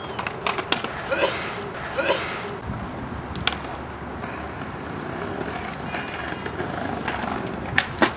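Skate wheels rolling on concrete, a steady rough rolling noise broken by a few sharp clacks, two of them close together near the end.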